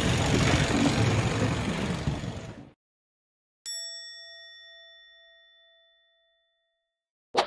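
Noisy outdoor sound among a pack of marathon runners cuts off abruptly. After about a second of silence, a single bell-like ding sound effect rings and fades over about three seconds. A short, sharp hit comes at the very end and is the loudest moment.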